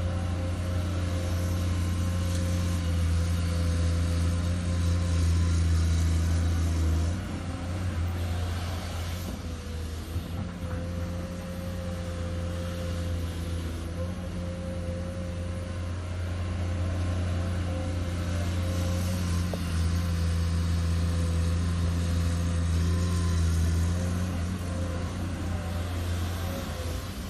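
Komatsu PC210 hydraulic excavator's diesel engine working under load while digging, swinging and dumping sand. The engine note is strong at first, eases about seven seconds in, builds again through the middle and drops back near the end.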